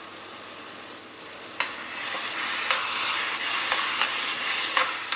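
Shredded cabbage and tomatoes sizzling in a frying pan. About a second and a half in, a spoon clicks against the pan and starts stirring, and the stirring scrapes and clicks over the louder sizzle.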